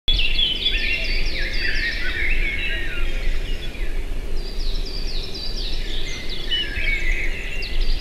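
A group of small songbirds chirping and twittering, many short overlapping calls, over a low steady background rumble.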